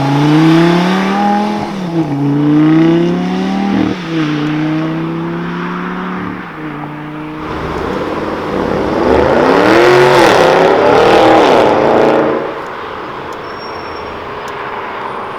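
Sports car engine accelerating hard, its pitch climbing and dropping sharply at upshifts about two and four seconds in. About halfway through comes a second loud burst of revving that rises and falls, then fades.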